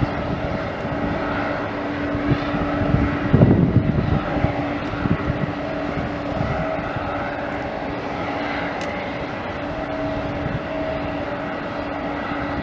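Boeing 747's jet engines at taxi power: a steady rumble with a steady droning hum, and a louder low rumble about three to four seconds in.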